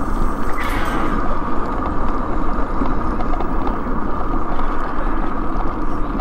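Steady running noise of a small scooter on the move: motor and tyres on the paved campground road, with a constant low rumble.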